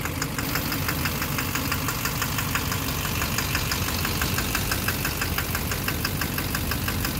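2009 Chevrolet Duramax LMM 6.6-litre V8 turbo-diesel idling with an even, sharp knock several times a second. The owner suspects a faulty injector behind the knock.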